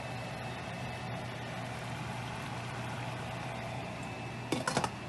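Steady hiss with a low hum from the stovetop. Near the end comes a quick run of ringing metallic clinks: a lid set onto the stainless steel steamer pan.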